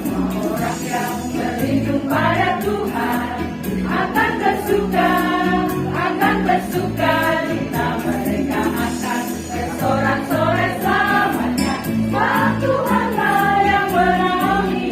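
A choir singing a Christmas hymn in several voice parts, holding notes and moving from phrase to phrase without a break.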